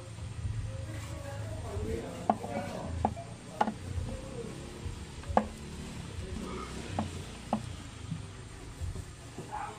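Cloth rag rubbing over the plastic airbox and frame of a Bajaj Dominar 400 motorcycle, with about half a dozen sharp light knocks and clicks spread through it.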